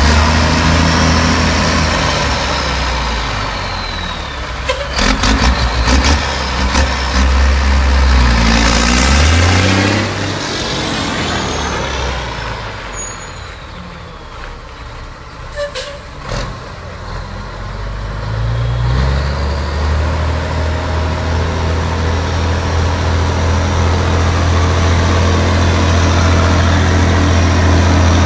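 Mack tanker truck's diesel engine running and revving as it pulls away. It grows fainter in the middle, with short air hisses at intervals, and its pitch climbs twice. It comes back loud and steady close by in the second half.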